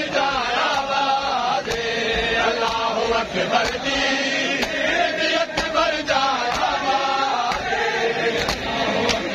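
Men chanting a noha (Shia lament) in a rhythmic call, with sharp slaps of matam chest-beating roughly once a second.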